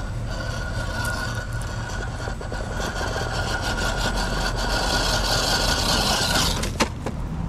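Electric motor and gear drivetrain of a scale RC rock crawler whining steadily as it climbs rocks, with tyres scrabbling on the stone. The whine cuts off about six and a half seconds in, followed by two sharp clicks.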